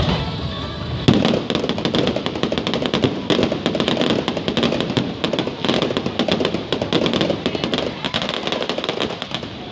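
Fireworks crackling: from about a second in, a dense, rapid run of many small sharp pops as the bursts go off, dying away just before the end.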